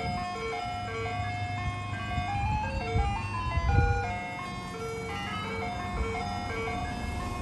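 Soft-serve ice cream truck's chime music playing a simple electronic tune one note at a time over its loudspeaker, with a low steady hum underneath.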